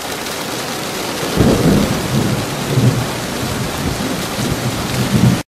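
Heavy rain pouring, with low thunder rumbles coming in about a second and a half in and swelling again several times; it all cuts off suddenly near the end.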